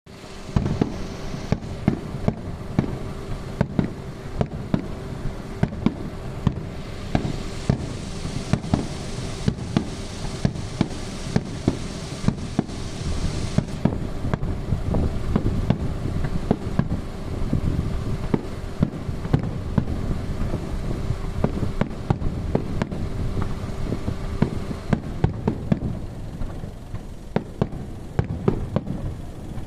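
Fireworks display: shells bursting in frequent sharp bangs, often several a second, over a continuous low rumble. A hissing rush rises for several seconds in the middle, and a faint steady hum underneath stops near the end.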